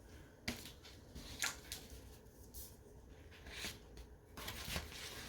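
Hands handling a hardcover book with a paper dust jacket: faint rustles and light taps about once a second, with a longer rustle near the end as the book is turned.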